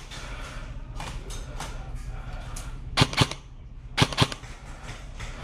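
Airsoft guns firing: a few fainter scattered shots in the first couple of seconds, then two loud short bursts of about three shots each, a second apart, near the end.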